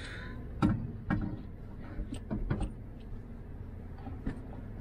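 A handful of sharp clicks and knocks, the loudest about half a second in, from handling a sink tap and its plastic supply pipes while working at cutting one off. A low steady rumble sits underneath.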